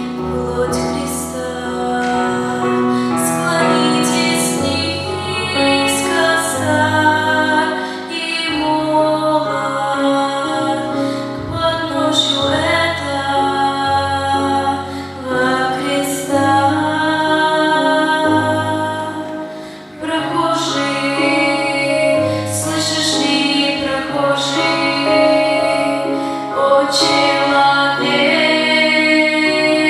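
A group of women singing a church song together over instrumental accompaniment with sustained bass notes.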